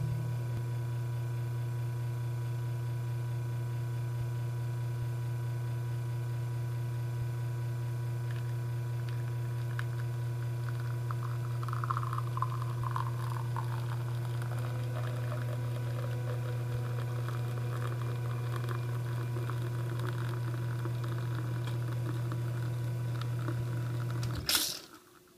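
Rocket Giotto Evoluzione V2 espresso machine's vibratory pump humming steadily through a shot pulled from a bottomless portafilter, with espresso trickling and pattering into a glass below. Near the end the pump cuts off with a short, sharp burst of noise.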